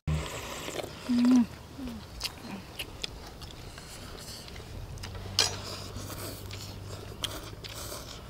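People slurping noodles and broth, with chopsticks clicking against porcelain bowls. A short hummed "mm" about a second in, and a sharp click just past halfway.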